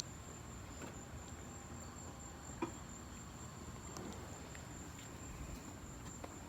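Insects trilling as a steady, faint, high-pitched drone, with a single light click about two and a half seconds in.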